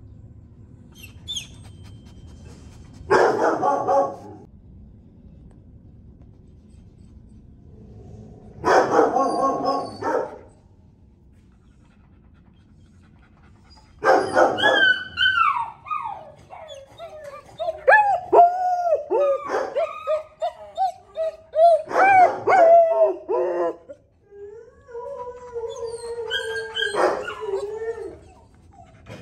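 A dog vocalizing: two short yowls, then from about halfway a long run of whining, howl-like calls that waver up and down in pitch.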